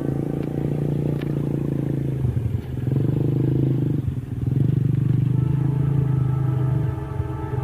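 Diesel locomotive of a passenger train running with a steady low throbbing drone, which dips briefly twice.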